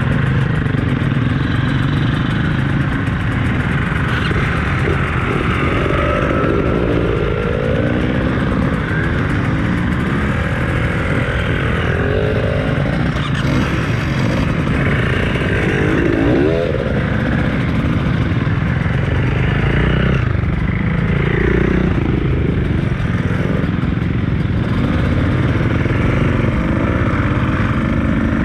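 Beta 200RR two-stroke enduro motorcycle being ridden off-road, its engine revving up and down again and again with the throttle over a steady low rumble.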